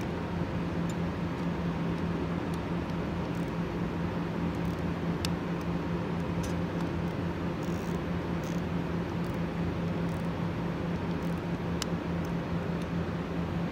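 Steady low hum of industrial machinery with a constant drone. A few faint clicks come through now and then.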